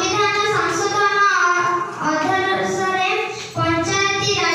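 A young girl's voice into a handheld microphone, in long phrases broken by two short pauses.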